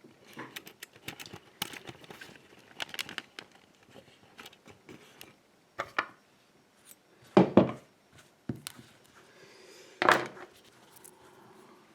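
Small metallic clicks and rattles of a just-picked dimple euro-cylinder lock and its tools being handled, with two louder knocks in the second half.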